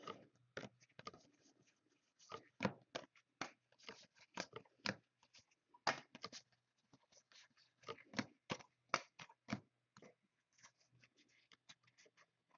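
Trading cards being handled and flipped through by hand: irregular sharp snaps and clicks of card stock, several a second.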